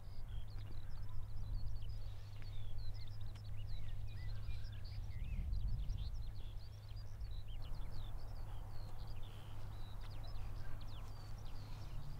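Many birds singing, a dense run of short high chirps and trills, over a steady low rumble.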